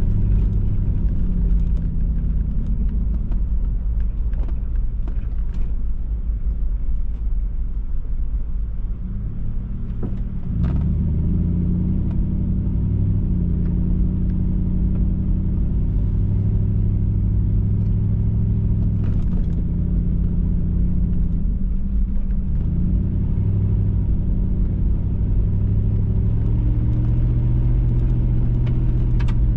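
Vehicle engine running while driving, with a steady low road rumble. The engine note drops and then picks up again about ten seconds in, and once more a little past twenty seconds.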